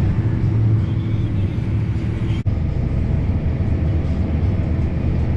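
Tractor engine running steadily, a low even hum, with the sound cutting out for an instant about two and a half seconds in.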